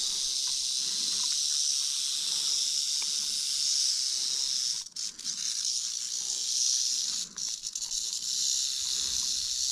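Black-phase timber rattlesnake buzzing its tail rattle as a warning while it is lifted on a snake hook, a steady high hiss that breaks off briefly twice near the middle.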